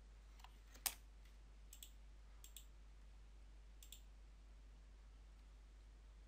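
Faint computer mouse button clicks over quiet room tone: several in the first four seconds, some in quick pairs, with one louder click about a second in.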